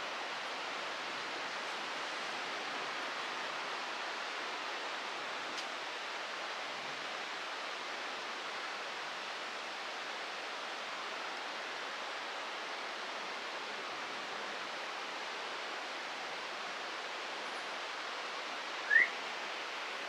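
Steady rushing of water, an even hiss. Near the end a single short, rising bird chirp stands out as the loudest sound.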